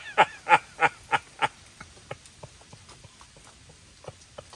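A person bursting into laughter: about five loud, rhythmic 'ha' pulses in the first second and a half, trailing off into faint breathy chuckles.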